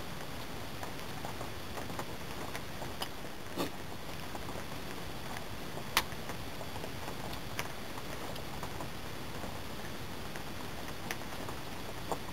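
Scattered small clicks and taps of hands working a birch bark sheath and knife, the sharpest about halfway through, over a steady hiss.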